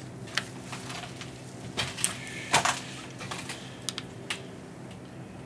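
Handheld spirit box being handled, its buttons pressed: a string of short, sharp clicks at uneven spacing, the loudest about halfway through, over a faint steady hum.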